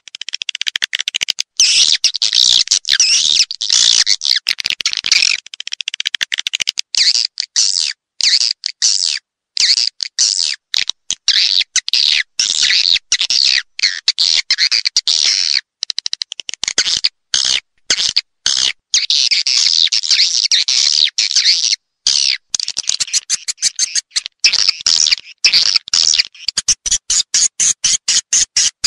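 Swiftlet lure-call track: dense, high swiftlet twittering and chirping, chopped into bursts with abrupt silent gaps. Near the end it turns into a fast, even run of short chirp pulses. It is played in swiftlet houses to draw swiftlets in to roost and nest.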